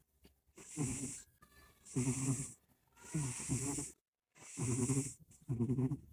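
Domestic cat snoring in its sleep: five rasping, snoring breaths, each with a hiss, coming about one a second.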